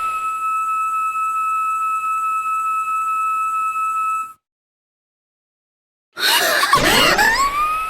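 Cartoon sound effect of a stovetop kettle whistling: a steady, high whistle that cuts off about four seconds in. After about two seconds of silence, a girl's scream starts again and glides up in pitch into the same kettle whistle near the end.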